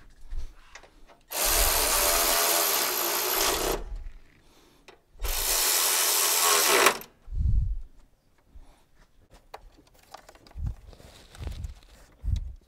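Cordless electric ratchet running in two bursts of a couple of seconds each, driving the hose clamp on the upper radiator hose tight. A few low knocks from handling the hose follow.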